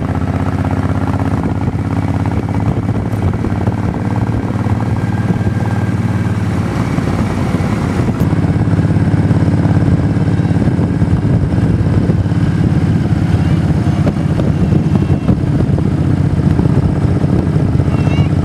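Motorcycle engine running steadily while the bike is ridden, a low continuous drone that grows a little louder about halfway through.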